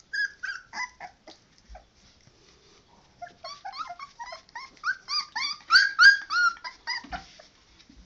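Three-week-old puppies yelping and whimpering in short, high squeaky cries while they tussle. A few cries come in the first two seconds, then a quick string of them from about three seconds in, loudest near six seconds.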